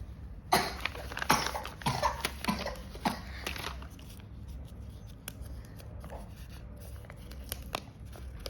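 Paper crinkling and rustling as a homemade paper blind bag is handled and opened, a burst of sharp crackles in the first few seconds, then a few faint ticks.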